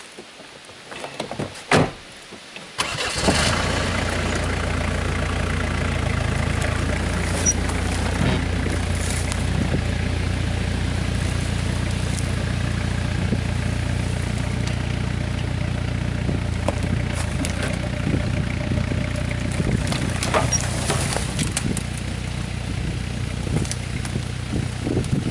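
A sharp knock, then a Jeep Cherokee XJ's engine starting about three seconds in. It runs steadily at low revs as the Jeep idles and creeps off.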